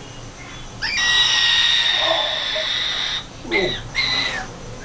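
A white cockatoo screeching: one long, harsh, loud screech about a second in, followed by two shorter calls near the end.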